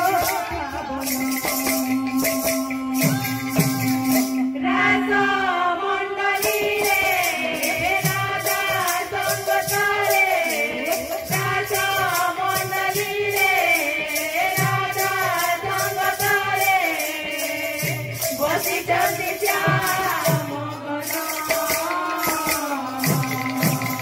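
Odia devotional kirtan: a woman sings over a fast, steady beat of hand cymbals and the deep, falling strokes of khol drums.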